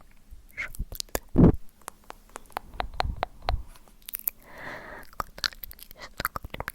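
ASMR mouth sounds: a run of wet tongue and lip clicks and smacks, with one louder, deeper thud about a second and a half in and a breathy puff a little past the middle.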